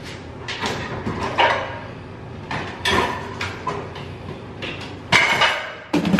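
Kitchen clatter while reaching low at the oven or cabinets: a string of irregular knocks and clanks, some with brief ringing, the loudest about five seconds in and again near the end.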